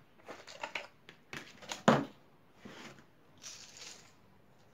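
Plastic jar handled and its lid worked off with small clicks and a sharp knock about two seconds in, then dry puffed rice mix (muri makha) rustling as it is tipped from the jar into a hand.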